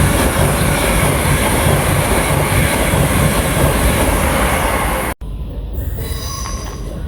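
Railway train running past close by: a loud, steady rush of wheel and rail noise that cuts off abruptly about five seconds in. A quieter rumble follows, with a brief high-pitched whine near the end.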